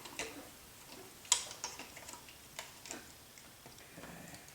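Scattered light clicks and taps of small parts being handled, as the helicopter's electric motor is tilted and worked into the frame, with a sharper click about a second in.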